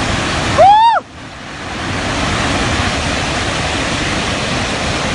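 Floodwater rushing through a burst earthen dam, a steady, even rush of noise. Under a second in, a person gives one loud shout that rises and falls.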